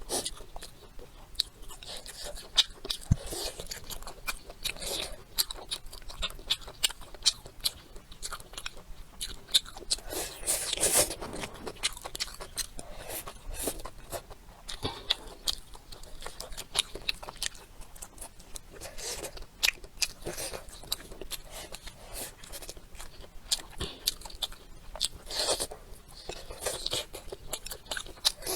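A person eating close to the microphone: steady chewing and biting with many quick, sharp mouth clicks and smacks, a few louder stretches in between.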